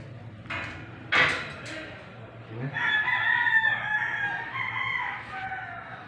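A rooster crowing: one long, drawn-out crow, held about three seconds and dropping in pitch at the end. A short, loud, harsh sound comes about a second in.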